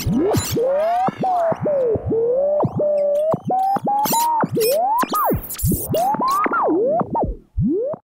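Old radio being tuned across the dial: whistling tones that swoop up and down in pitch, broken by crackles and clicks, with a brief drop-out near the end.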